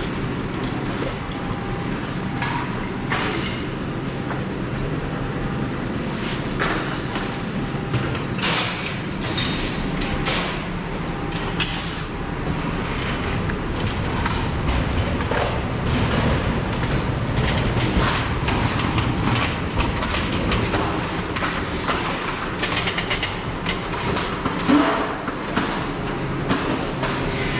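A truck-mounted crane's engine running steadily, with irregular metal clanks and knocks as salvaged machine parts are lifted and set down.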